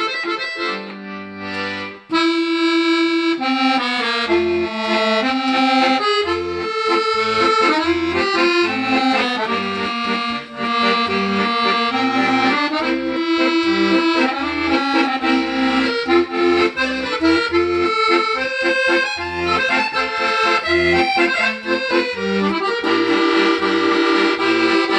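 Italian Vercelli bayan (button accordion), freshly repaired and tuned, played as a tune in full chords over a left-hand bass accompaniment. It starts softer and swells to full volume about two seconds in.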